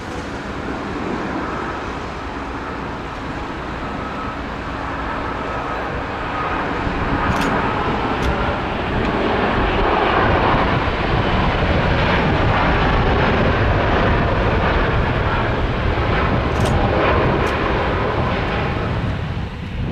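Jet engines of a Boeing 737-800 on its landing: a dense noise with a steady whine, growing louder about a third of the way in and staying loud through the second half before dropping off near the end.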